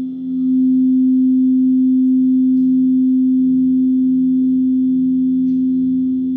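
Singing bowl sounding one long, steady, low ring with a slow wavering beat, dipping briefly at the start and beginning to fade near the end.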